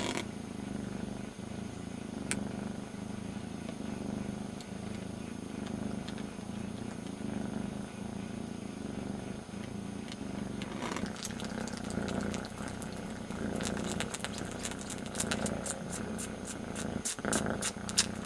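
Young kitten purring steadily while suckling on its littermate's ear in place of its mother's teat. From about eleven seconds in, a run of quick wet clicks from the licking and sucking joins the purr.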